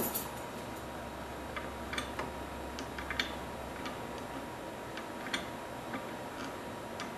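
Light, irregular metallic clicks and taps of a wrench working on the CNC router spindle's collet nut, loosening the collet to free a stuck router bit. A steady low hum runs underneath.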